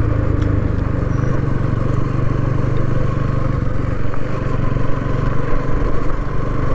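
Vehicle engine running steadily, a low hum with road noise and no change in speed.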